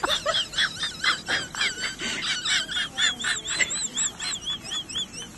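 High-pitched animal chirping, several chirps a second, with a run of evenly spaced rising-and-falling chirps in the second half.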